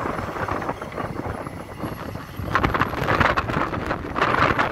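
Hidromek 410 LC UHD excavator working: its engine running and hydraulics driving the arm, growing louder about two and a half seconds in as the bucket digs into the ground.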